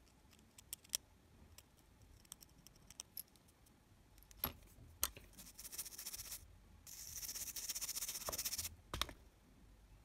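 A metal pick ticking and scraping over the components of a small circuit board, then a toothbrush scrubbing the board in two stretches of quick bristle hiss from about five seconds in to near nine, with a few sharp clicks between, to clean the board.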